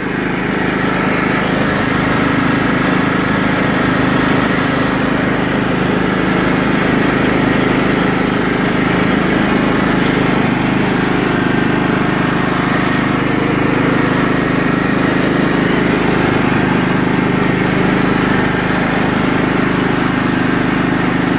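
John Deere LT155 lawn tractor's 15 hp Kohler Command single-cylinder OHV engine running steadily at full throttle as the tractor drives along, its level rising slightly just after the start and then holding even.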